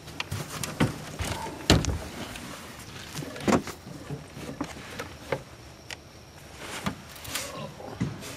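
Irregular knocks and clunks on an aluminium jon boat as a person shifts and kneels in it, the loudest a little under two seconds in and again about three and a half seconds in.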